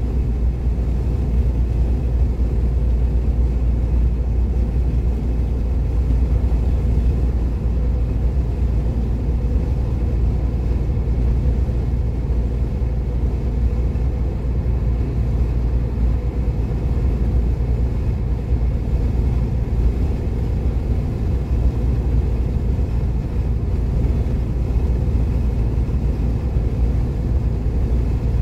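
A car cruising on a motorway, heard as a steady low rumble of road and engine noise.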